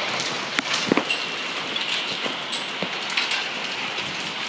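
Hail and rain coming down hard: a steady hiss of rain with scattered sharp clicks and knocks of hailstones striking the ground and nearby surfaces, a few louder strikes in the first second.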